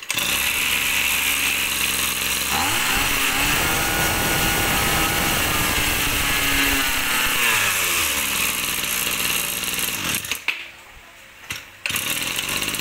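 Hitachi 23 cc two-stroke brush cutter engine pull-started and running. It is revved up about two and a half seconds in and eased back to idle around eight seconds. The engine cuts out about ten seconds in, then is pulled and runs again briefly near the end.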